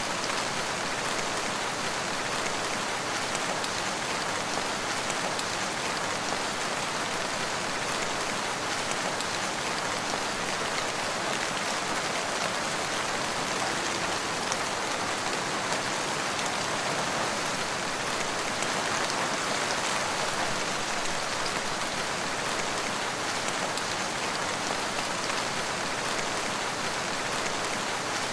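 Steady rain falling, an even, unbroken sound of many drops with no thunder.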